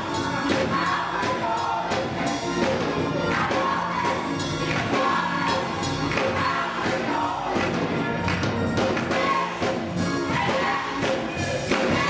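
Gospel choir singing together with keyboard accompaniment and hand claps on the beat.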